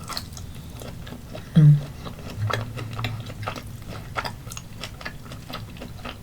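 Close-miked chewing of grilled octopus: irregular wet clicks and smacks of the mouth. A short hummed 'mm' comes about a second and a half in.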